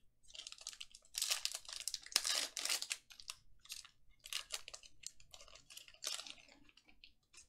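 Foil wrapper of a Panini Mosaic football card pack being torn open and crinkled by hand, in irregular crackling bursts. The crinkling is loudest about one to three seconds in and carries on in shorter bursts until near the end.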